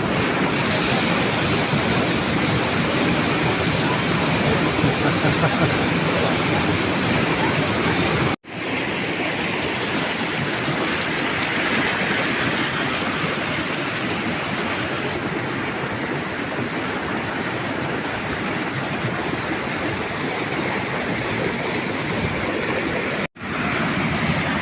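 Waterfall rushing: a steady, loud wash of falling water. It is cut off for an instant twice, once about a third of the way in and again near the end.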